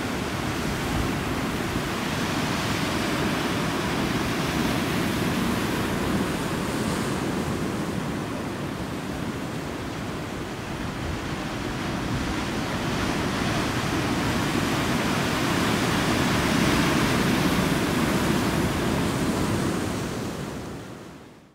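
Ocean surf breaking and washing against rocky sea cliffs: a continuous rush of churning water that swells and eases with the waves, then fades out near the end.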